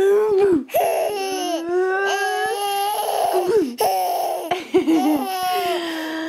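A toddler laughing hard in a run of long, high-pitched peals of laughter, one after another with short breaths between.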